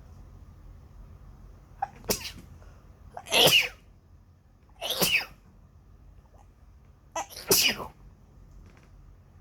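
A person sneezing four times within about six seconds, the loudest sneeze about three and a half seconds in.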